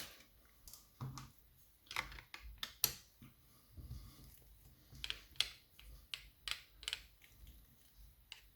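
Irregular small clicks and taps, roughly one or two a second, from a lever mortice lock and the picking tools in it being handled and worked.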